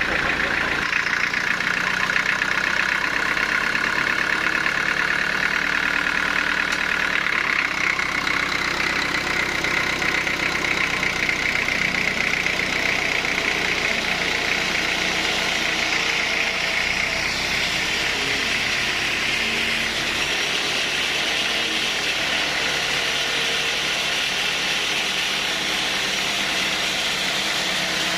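Sawmill machinery running steadily: a constant engine drone under the hiss of the saw, the hiss shifting higher a little past halfway.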